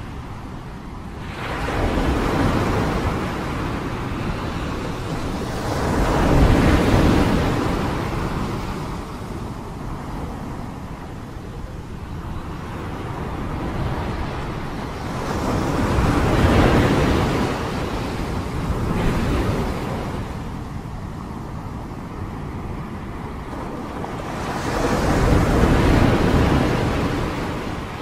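Stormy noise of crashing waves and gusting wind: a rough rush that swells and fades in surges every few seconds.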